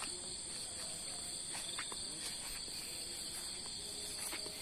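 Steady insect chorus: a continuous high, shrill trilling at two pitches that does not let up.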